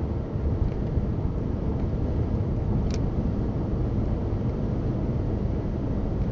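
Steady low rumble of a car driving, road and tyre noise heard from inside the cabin, with a single brief click about three seconds in.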